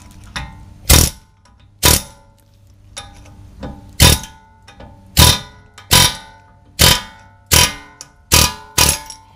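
About ten sharp metal-on-metal blows, each ringing briefly, struck on a 2006 Honda Civic's heated front steering knuckle to drive out the seized, worn-out wheel bearing. The blows come at irregular intervals and fall closer together near the end.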